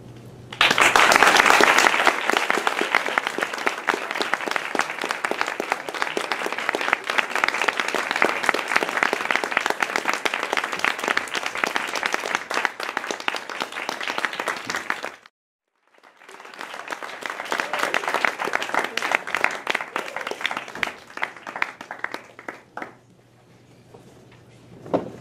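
Audience applauding after a song ends. The clapping starts about half a second in, breaks off completely for under a second about fifteen seconds in, picks up again and dies away a couple of seconds before the end.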